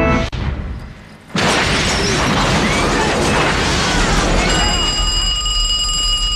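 Music cuts off, and after a short lull a film explosion goes off about a second and a half in: a sudden loud blast with a long, noisy rumble as a bus blows up. Near the end a steady high ringing tone sounds over the fading blast.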